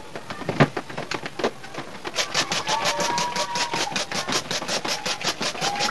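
Hand-pump trigger spray bottle (a bird mister) squeezed over and over, each stroke a short click and spurt of spray onto a split air conditioner's indoor unit, settling about two seconds in into a steady rhythm of about five squirts a second. A sharp knock comes a little over half a second in.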